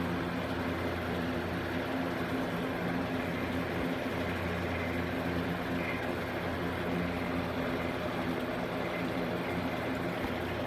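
A steady low machine hum made of several constant low tones, unchanging throughout.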